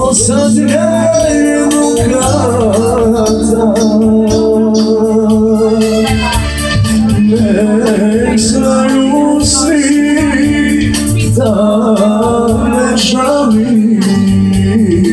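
Live band music: a singer's wavering, ornamented melody over steady held chords, loud and continuous.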